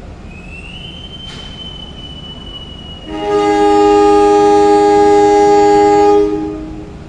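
Diesel locomotive horn sounding one long chord of about three seconds: the departure signal as the train pulls out. Before it comes a thin high whistle that rises and then holds for about four seconds, with a single knock about a second in.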